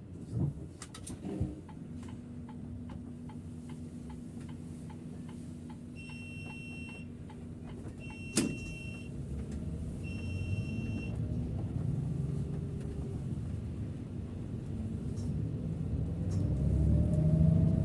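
Inside the cab of a Setra S 531 DT double-decker bus: the diesel engine rumbles steadily, with two thumps in the first couple of seconds and then regular clicking at about three a second. Three electronic beeps follow, about two seconds apart, with a sharp click among them, and the engine grows louder toward the end.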